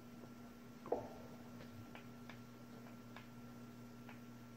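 A few faint, irregular ticks over a low, steady hum, with a short soft sound about a second in.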